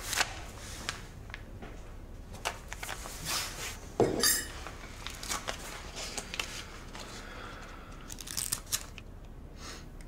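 Quiet handling noises: paper rustling with scattered small clicks and knocks as banknotes are handed over and taken, with a louder rustle about four seconds in.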